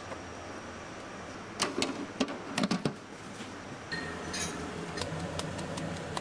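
Cooking utensils clinking against pans and dishes at a street-food griddle. A quick run of sharp metal clinks comes about two seconds in and a few lighter taps follow later, over a steady background hum.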